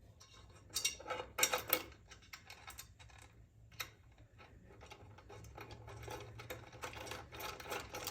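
Small metallic clicks and rattles of stainless bolts, nuts and washers being handled. There is a cluster of louder clicks about a second in and a denser run of quick ticking in the second half.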